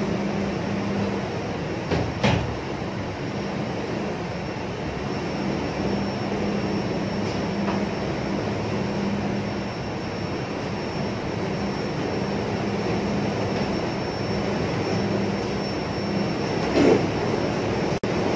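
Steady rumbling noise throughout, with two sharp knocks from the wooden folding ladder chair: one about two seconds in as it is stepped on, and one near the end as its frame is tipped over to fold it.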